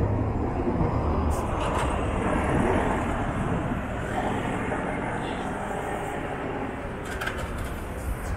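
City street traffic: a bus drives past close by over a steady rumble of traffic.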